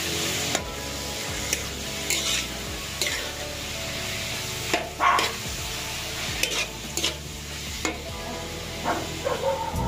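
Pork pieces sizzling as they are sautéed in hot oil in a pan. A cooking utensil stirs and scrapes against the pan in brief strokes at irregular moments.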